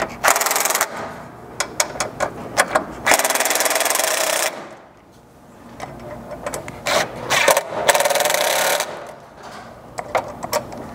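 Cordless impact driver with a hex bit running in three short bursts, hammering the 5/16 black button-head bolts tight in a steel rock-slider tread plate, with a few sharp clicks of handling between the bursts.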